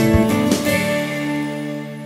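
Instrumental background music: a few struck notes, then a final chord held at about the first second that rings on and fades out.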